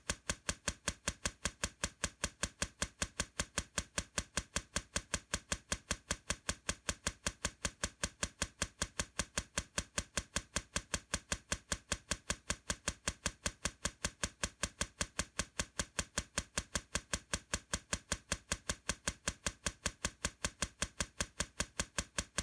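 Steady, evenly spaced ticking, about four sharp clicks a second at a constant level, like a timer or clock-tick sound effect.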